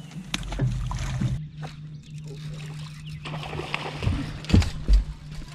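Sounds on a bass boat while a hooked bass thrashes at the surface: a steady low hum, scattered knocks on the boat, and a cluster of louder thuds and splashes about four to five seconds in.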